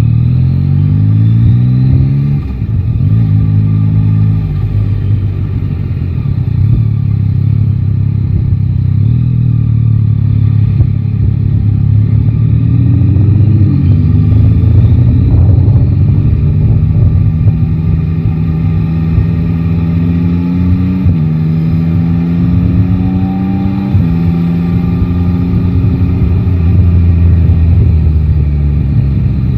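Yamaha Tracer 9 GT's three-cylinder engine under way: it pulls up through the gears in the first few seconds, its pitch rising and then dropping at each shift, then runs steadily with a few more rises and gear changes later on.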